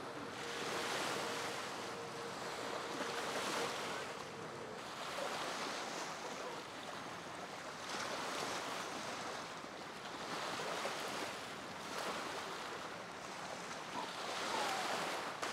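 Wind and choppy water rushing, a steady hiss that swells and eases every couple of seconds.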